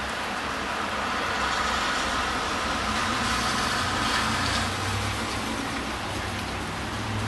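Steady rain with a vehicle passing on a wet road: its tyre hiss swells from about one and a half to four and a half seconds in, over a low engine hum.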